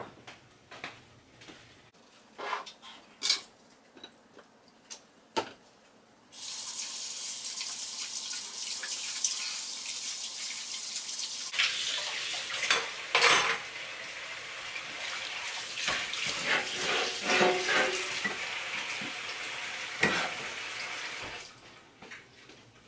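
Dishes being washed at a kitchen sink: scattered clinks of dishes and utensils, then the tap turned on about six seconds in, running steadily with more clinks and clatter, and turned off near the end.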